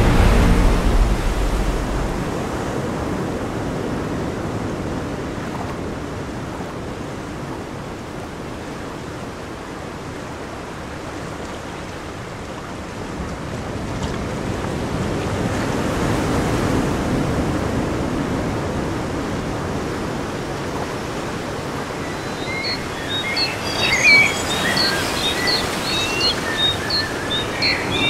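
A toilet flush surges at the start of a CWS automatic seat-cleaning toilet's cycle and settles into a steady rush of running water. In the last few seconds a string of short, high squeaks sounds over it.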